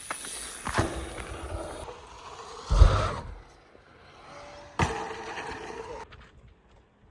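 Mountain bike rolling fast over a packed-dirt course, with a rough rushing of tyres and air and several heavy thumps, the loudest about three seconds in.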